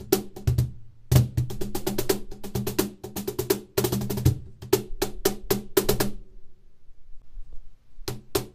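Meinl cajon played with bare hands: a fast run of sharp slaps and deep bass tones. It stops about six seconds in, and the playing picks up again just before the end.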